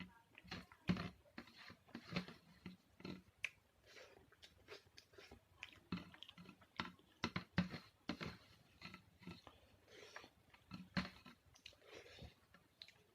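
A man chewing a mouthful of salted rice with potato and onion, with irregular wet mouth smacks and clicks, several a second.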